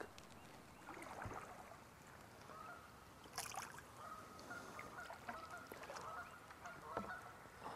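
Geese honking faintly in the distance, a few short calls now and then, over quiet open-air ambience.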